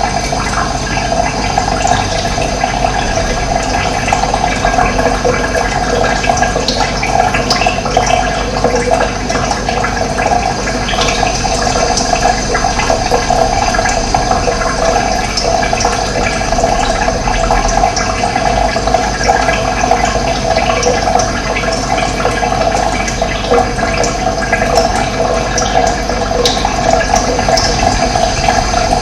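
Running water flowing steadily, a continuous rushing splash.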